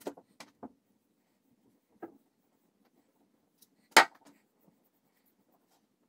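Light handling knocks on a wooden workbench while a board is being stained: a few soft taps, then one sharp knock about four seconds in as the wooden board is laid down on the paper-covered bench.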